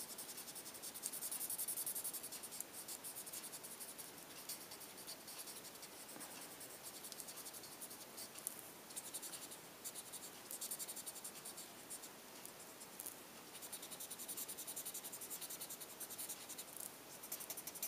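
A pencil-like colouring tool rubbing back and forth on paper in quick, short strokes: a faint, continuous scratching.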